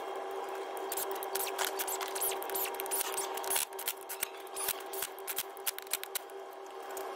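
Irregular light metallic clicks and taps as the dual mass flywheel is fitted onto the crankshaft and its bolts are started by hand, over a steady background hum.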